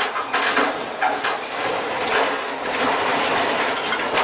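Steel crane tipping over under the boat it is lifting: a few sharp metallic clanks and knocks in the first second or so, then a continuous noisy clatter as the crane and boat come down.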